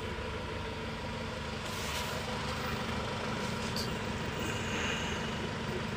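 Mahindra Xylo engine idling steadily, with its EGR modulator unplugged, heard from inside the cabin.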